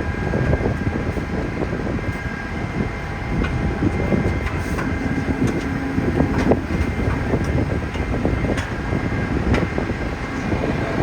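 Fire apparatus diesel engines running steadily: a continuous low rumble with faint steady whining tones above it and a few scattered light clicks.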